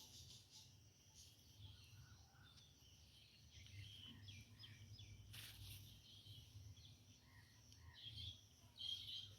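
Faint outdoor ambience with small birds chirping now and then over a low steady rumble. A single soft tap comes about halfway through.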